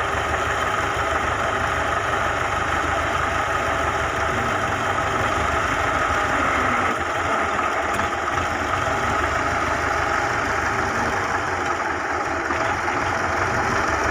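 Tractor diesel engine idling steadily, with no change in speed.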